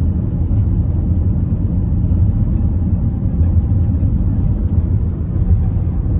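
Steady low rumble of a car driving along a road, heard from inside the cabin: tyre, road and engine noise.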